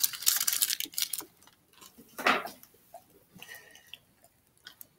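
A dog chewing a piece of cake off a paper sheet: a run of wet clicky chewing noises in the first second and a half, another loud one about two seconds in, then sparser ones as it lifts its head.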